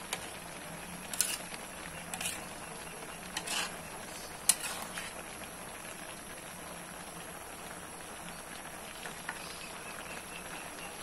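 Vegetable chop suey sizzling steadily in an aluminium wok, with a metal spatula scraping and clacking against the pan about five times in the first half as it is stirred.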